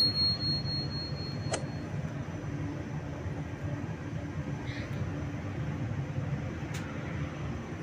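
Bakery dough machinery running with a steady low hum. A thin high beep sounds for about the first two seconds, and a couple of sharp clicks come at about one and a half seconds and near seven seconds.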